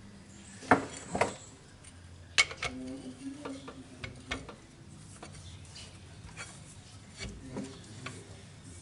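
Metal clinks and clicks of a socket and steel bar being fitted and worked on a transfer case plug: three sharp clinks in the first two and a half seconds, then lighter scattered ticks.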